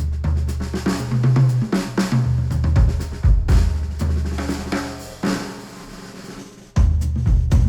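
Instrumental music with a drum kit and bass line, played back through an open-back Sennheiser headphone and picked up by microphones. The beat thins out about five and a half seconds in and comes back in suddenly a little over a second later.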